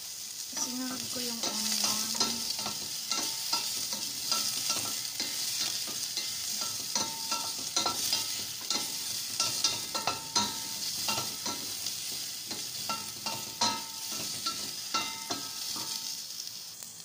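Garlic, ginger and onion sizzling in hot oil in a stainless steel pot, with a wooden spatula stirring and knocking against the pot over and over; many of the knocks leave a short metallic ring.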